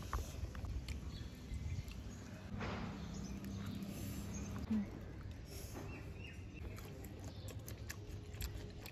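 Eating with the hands: faint clicks and soft noises of fingers mixing rice and food and of chewing, over a steady low rumble. A hummed 'mmm' lasting about two seconds comes in the middle, rising at its end.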